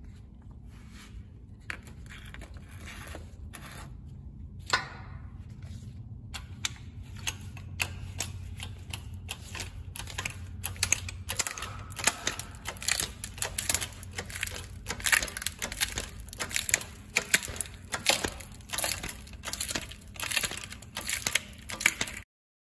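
A smartphone being crushed under the ram of a 12-ton hydraulic bottle-jack shop press: the glass screen and body crackle and snap in a dense run of sharp clicks and pops, with a low rumble underneath. The cracking grows louder and more frequent as the press closes, then cuts off suddenly near the end.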